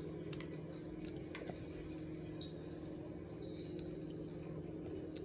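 Wet eating sounds: small mouth clicks and smacks as someone chews sauced barbecue meat and bread, over a steady low hum.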